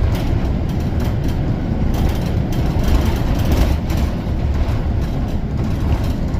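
Steady low rumble of engine and road noise heard from inside a moving city bus.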